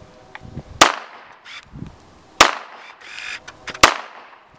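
Three shots from a .45-calibre Glock pistol, about a second and a half apart.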